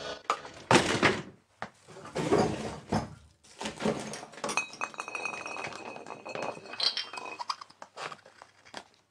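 Glass clinking and knocking: a run of sharp clinks and thuds, with a high ringing tone held for about three seconds in the middle.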